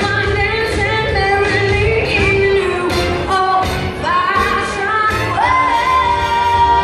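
A woman singing a pop-style Christmas song into a microphone over accompanying music with a steady beat, holding one long note from about five seconds in.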